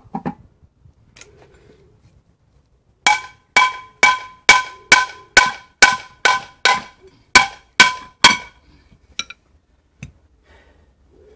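Hammer blows on a Land Rover Defender's steel hub and old front brake disc, knocking the disc free of the hub. There are about a dozen sharp metallic strikes, roughly two a second, each ringing briefly at the same few pitches, then one lighter tap.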